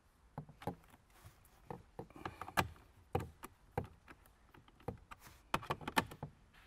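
Hand screwdriver driving screws into a dashboard center-channel speaker mount: a run of irregular light clicks and taps of tool and screw against plastic.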